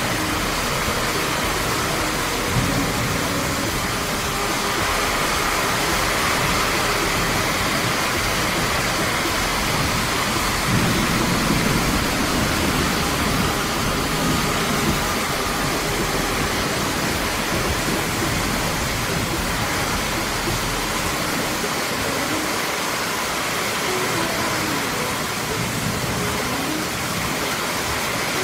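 Very heavy rain falling steadily, with water streaming off a roof edge onto the flooded ground. A low rumble swells briefly about eleven seconds in.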